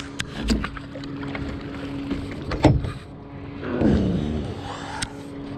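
Knocks and clatter of a landing net and fishing gear being handled on a boat, the loudest knock about two and a half seconds in, over a steady hum from the boat's motor.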